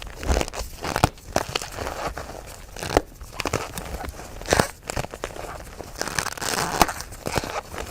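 Fresh gym chalk crumbling under the fingers: irregular dry crunching and crackling, with a few sharper snaps as pieces break.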